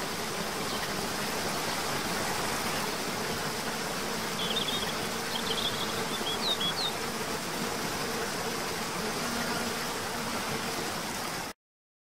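Steady rush of a waterfall cascading over rock into a pool, with a faint insect buzz underneath and a few short high chirps about halfway through. The sound cuts off suddenly near the end.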